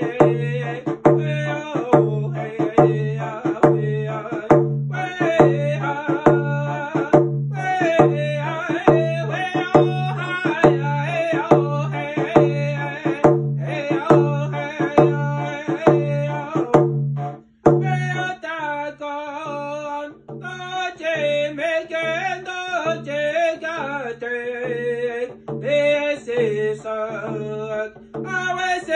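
A large hide-headed frame hand drum struck with a stick beater in a steady, even beat, with a man singing over it. The drumming and singing break off briefly about two-thirds of the way through, then resume.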